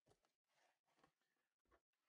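Near silence, with a few faint, brief rustles of hands handling things.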